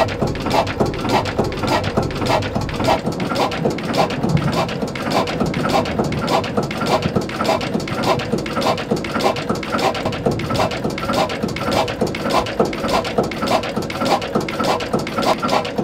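1928 MODAG D4 stationary engine running steadily, its valve gear and firing making an even rhythm of about four beats a second.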